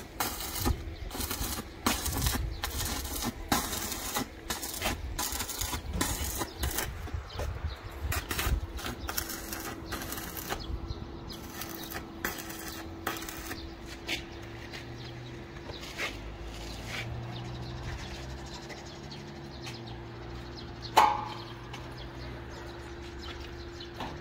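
Electric arc welding on a steel roof frame: a dense, irregular crackle for the first ten seconds or so, thinning to occasional pops after that. A steady hum sits underneath in the later part, and a single sharp click comes about 21 seconds in.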